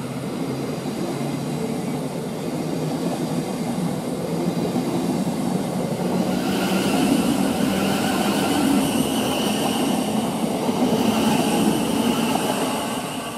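Thameslink Class 700 Desiro City electric train running along the station platform: wheel and rail rumble with a steady high whine, growing louder about six seconds in.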